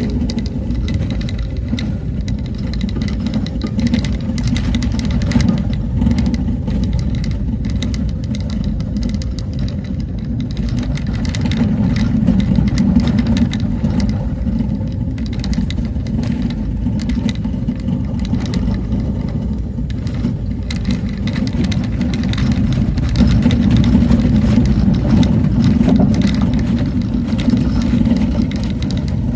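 A vehicle driving along a road: a steady low engine and road rumble that swells and eases a little, with frequent short knocks throughout.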